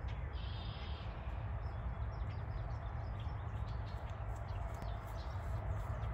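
Birds chirping in short calls, one held briefly about half a second in, over a steady low rumble.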